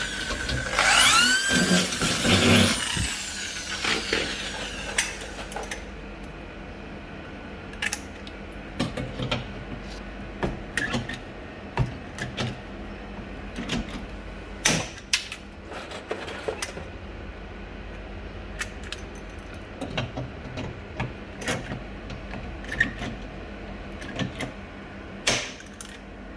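A power tool whirring briefly near the start, its pitch rising and falling, then scattered clicks and knocks of hand work on aluminium cabinet door hardware.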